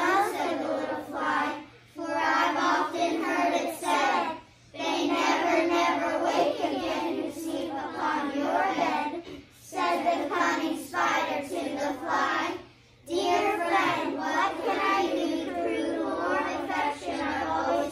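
A group of children reciting a poem in unison, in short phrases separated by brief pauses.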